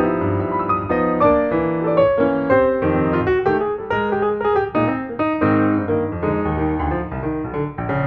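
Piano music with a busy, continuous run of notes.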